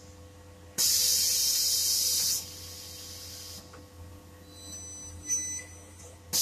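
Compressed air hissing in a burst of about a second and a half that starts and stops abruptly, followed by a brief high whine and then a second burst of hiss at the end.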